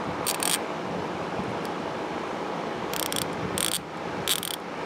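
Vintage Plumb 24-tooth hand ratchet, freshly cleaned and lightly oiled, being worked back and forth: its pawl clicks over the gear in fast rattling runs. Several crisper, louder bursts of clicks come mostly in the last two seconds.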